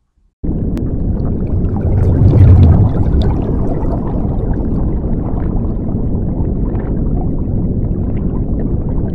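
Underwater bubbling and gurgling sound effect that starts suddenly about half a second in, loudest around two to three seconds in, then goes on steadily.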